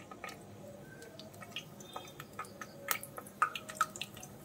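A samosa deep-frying in hot oil in a pan: the oil sizzling quietly, with irregular small crackles and pops from the bubbles.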